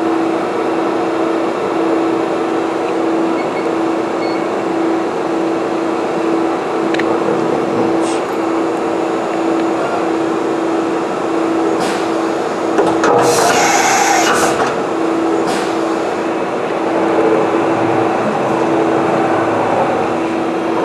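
JMT CNC plate drilling machine running its program just after start: a steady pulsing hum over machine noise, with a few sharp clicks and a loud burst of hiss about two-thirds through.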